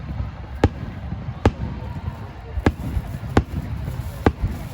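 Aerial fireworks shells bursting overhead: five sharp bangs at uneven intervals, about one every second, over a steady low rumble.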